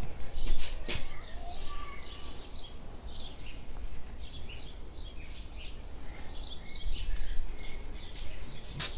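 Small birds chirping and twittering over a steady low rumble of outdoor background noise, with a few sharp clicks in the first second and one more near the end.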